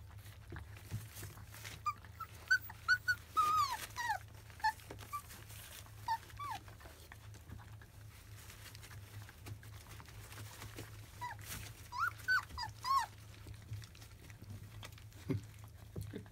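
Labrador retriever puppies, about 25 days old, whimpering and squeaking: short high-pitched cries, many sliding down in pitch, in a bout about two seconds in and another around eleven to thirteen seconds.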